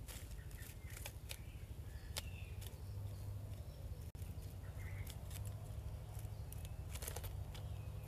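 Irregular light clicks and scratches, typical of a small striped squirrel's claws scrabbling on a plastic plant pot and dry nest twigs, with a few faint short chirps over a steady low rumble.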